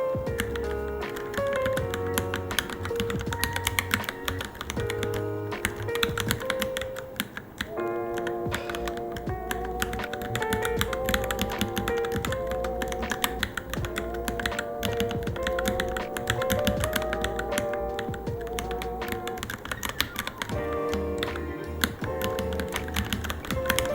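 Rapid, irregular keystrokes on a Varmilo Minilo mechanical keyboard during typing practice, heard under background music with a sustained melody.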